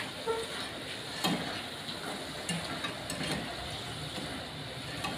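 Potato chips deep-frying in hot oil in a steel pot, a steady sizzle, with a few sharp clicks as a wire skimmer turns them against the pot.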